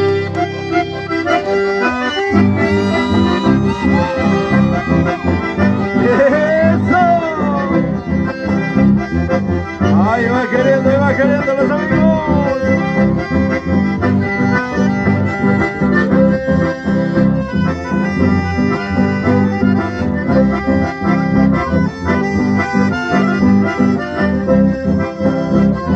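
Live band music: two accordions playing a lively tune together over an electric bass, with a steady, regular beat.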